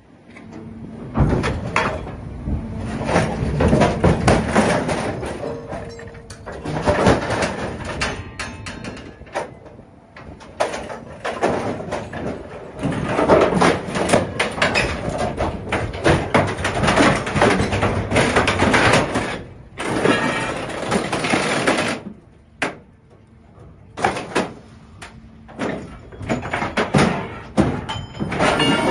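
A forklift truck being crushed in a scrap metal baler as the hydraulic lid closes over it: loud metal creaking, grinding and crunching in irregular surges, easing briefly a little before the end.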